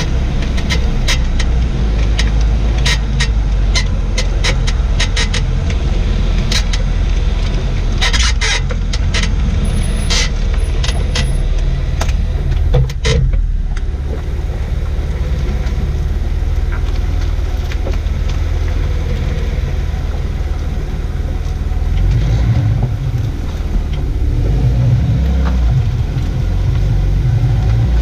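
Jaguar XJ6 X350 with a steady low rumble of the running car. Over it, a run of short sharp squeaks and creaks from the rear suspension comes in the first half and then stops. The sound is like a broken bed; the owner suspects the newly replaced rear air strut or a failing bushing.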